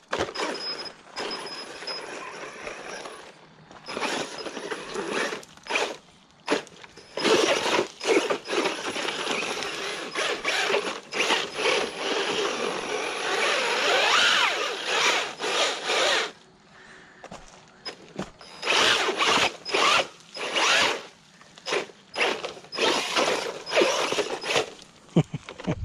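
Brushless RC car on a 3S LiPo, its motor and gears whining in stop-start bursts of throttle as it climbs over rocks and gravel, with the pitch rising and falling as it revs about halfway through.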